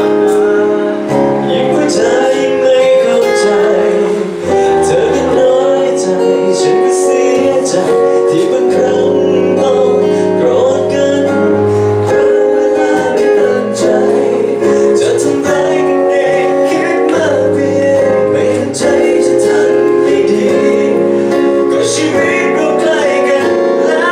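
Pop song with guitar and singing, played through during a sound check.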